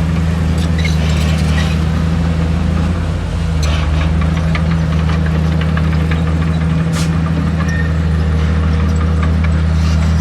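Heavy diesel engine of earthmoving equipment running steadily at a low, even drone, easing slightly about three seconds in.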